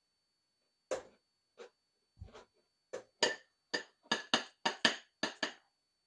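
Shrimp shells being peeled off by hand: scattered sharp clicks and crackles, a duller knock about two seconds in, then a quick run of about ten clicks in the second half.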